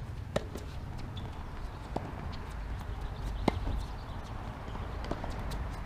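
Tennis rally on a hard court: scattered sharp pops of racket strikes and ball bounces, the loudest about two and three and a half seconds in, with the scuff of court shoes and a low rumble underneath.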